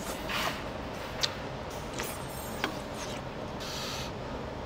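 Eating malatang: a metal spoon clicks twice against the soup bowl, with short bursts of slurping and stirring. A steady low hum runs underneath.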